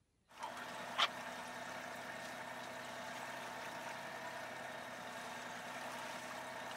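A boat engine running steadily under way, with water noise. There is one sharp click about a second in.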